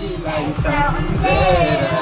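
Children and women singing a Nepali Teej folk song, voices wavering and overlapping, over a steady low pulsing underneath.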